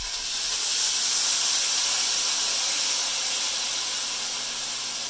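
Soy sauce hitting a hot pan of carrots in sesame oil and sizzling loudly, starting suddenly and slowly dying down.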